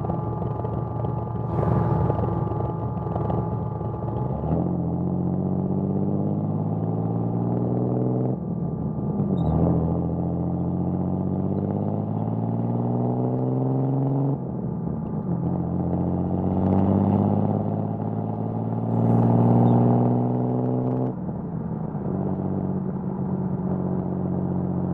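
1979 Datsun 280ZX's L28 inline-six on triple Weber carburettors, breathing through a 6-2-1 header and HKS Hi-Power exhaust, pulling through the gears. The engine note climbs steadily, drops sharply at each of about three upshifts, then holds steady near the end.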